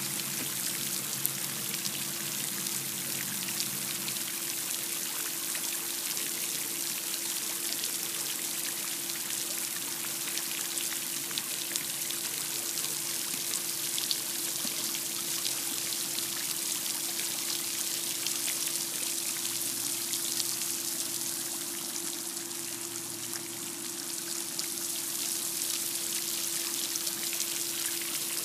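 Floating pond fountain spraying water, a steady splashing hiss of the spray falling back onto the pool's surface, with a steady hum underneath.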